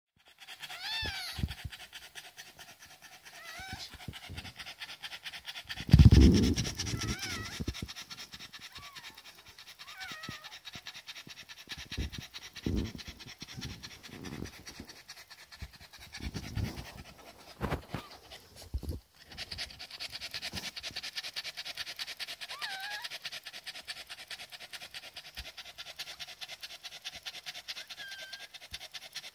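A long-haired white dog panting fast and steadily with its tongue out. Short high squeaks come every few seconds, from the newborn puppy beside her. A loud thump comes about six seconds in.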